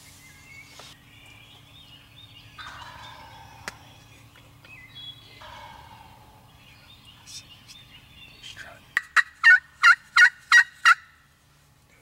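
Wild turkey gobbler gobbling once near the end: a loud, rapid rattle of about seven short falling notes lasting about two seconds, after fainter calls earlier on.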